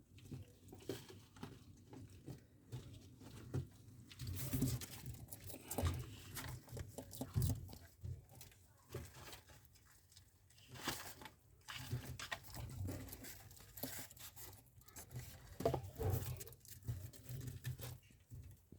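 Irregular light scratching, tapping and rustling, many small scrabbling clicks coming and going.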